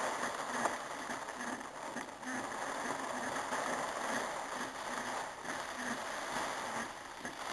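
Heavy rain falling in a rainstorm: a steady, dense hiss that swells and dips slightly.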